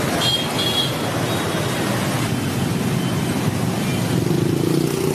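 Dense street traffic of motorbikes, scooters and cars, with a steady wash of engine and road noise. Two short high beeps come in the first second, and a nearer engine hum grows louder near the end.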